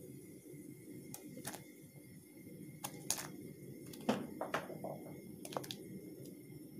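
Potato cubes being tipped off a glass cutting board into a pot of boiling soup: scattered sharp clicks and taps of the board and knife, a few at a time, over the steady low bubbling of the boil.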